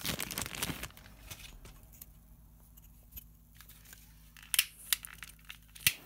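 Crinkling and rustling of handled dry material for about the first second. Near the end comes a short series of sharp clicks from a utility lighter's igniter as it is sparked to light a wooden stick.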